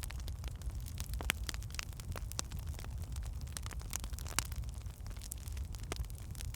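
Wood fire crackling in a fireplace: irregular sharp snaps and pops over a low, steady rumble.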